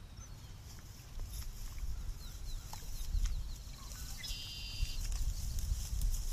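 Wind rumbling on the microphone, with faint bird chirps and a quick trill of repeated notes in the background.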